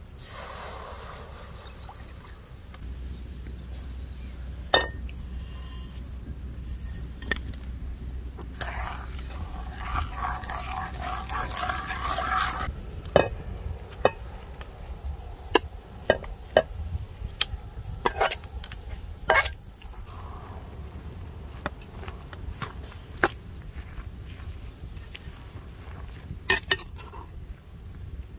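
A slotted metal skimmer scrapes rose petals out of an enamel bowl into a pan of water. There is a rustling scrape for a few seconds near the middle, then a run of sharp clinks of the metal spoon against the bowl and the pot. A steady high insect chirring runs underneath.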